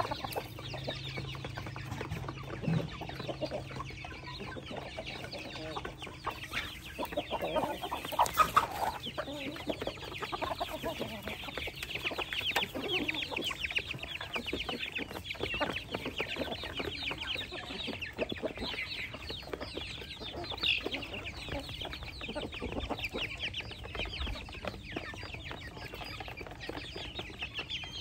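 Chickens clucking while they feed, with a busy stretch of high, rapid calls in the middle.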